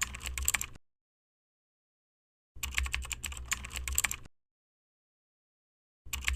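Rapid clatter of clicks like keyboard typing, in repeating bursts of about a second and a half, cut off abruptly into dead silence between them.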